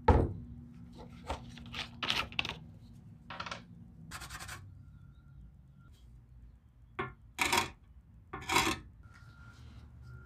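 Steel lantern parts being handled on a workbench: a sharp metallic clank at the start, then a string of short scrapes and rubs, with three louder scraping strokes in the last few seconds.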